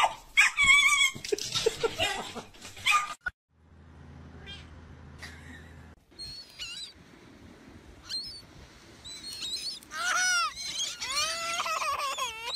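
A cat yowling and screeching in a scuffle with a small dog, cutting off suddenly about three seconds in. Then a few faint, short, high bird calls, and from about ten seconds in a young girl wailing in long, loud cries that rise and fall.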